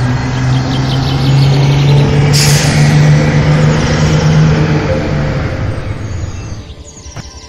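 A heavy vehicle's engine running, swelling louder to a peak about three seconds in and then fading away. A sudden sharp hiss of air comes about two and a half seconds in.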